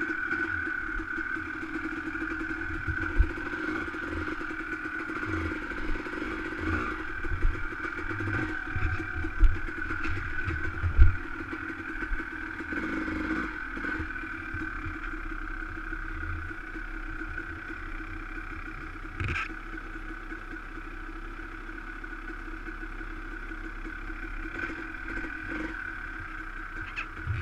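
Dirt bike engine running at low revs, heard from a helmet camera, with repeated low thumps and knocks as the bike crawls over rocks. The knocks die away after about twelve seconds and the engine runs on steadily.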